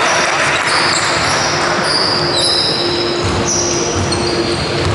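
Basketball game in a large sports hall: sneakers squeaking on the court floor and a basketball bouncing as it is dribbled, over steady hall noise.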